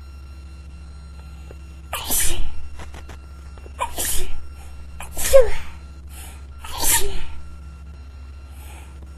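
A person sneezing four times in a quick fit, each sneeze about a second and a half after the last, starting about two seconds in.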